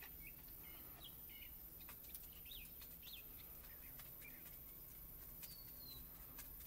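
Faint, scattered bird chirps, short high calls coming every second or so, over near-quiet background.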